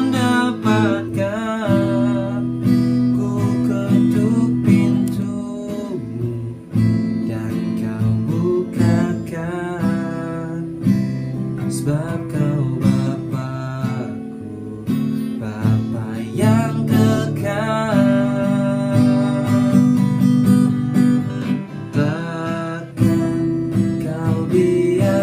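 Song with an acoustic guitar strummed and plucked, and a voice singing along at times.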